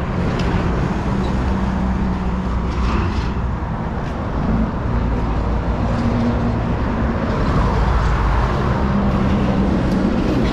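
A motor vehicle's engine running steadily, with a low rumble and some traffic noise.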